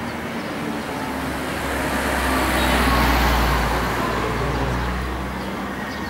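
A motor vehicle driving past: road and engine noise that swells to a peak about halfway through and then fades away.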